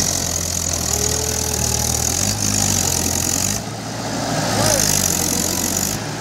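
Mahindra 575 DI tractor's four-cylinder diesel engine running under heavy load as it pulls a loaded trailer through deep mud ruts. Its note steps up and down in pitch a few times as the load changes.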